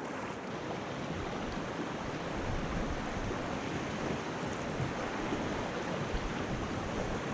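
Steady rush of fast river water through a small rapid around a kayak, with occasional paddle splashes and wind on the microphone.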